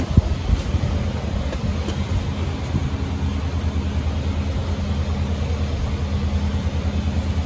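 A car engine idling steadily, with one sharp click just after the start.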